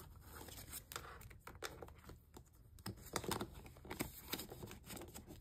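Paper dollar bills being handled and counted by hand: faint rustling with scattered light clicks and taps.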